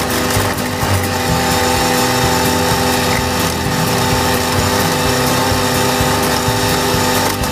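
Valtra A93 tractor's diesel engine and Agrimaster KP2600 flail mower running steadily under load while cutting grass, a constant hum under the mower's dense whirring.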